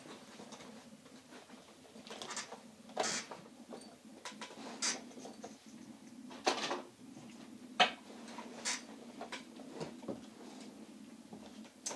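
Scattered light clicks and knocks from an office chair and a wooden desk as someone moves the chair, sits down and settles at the desk, over a faint steady hum.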